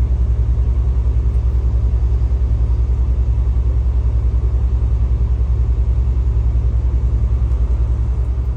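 An engine running steadily: a loud, deep rumble with a fast, even throb, fading out near the end.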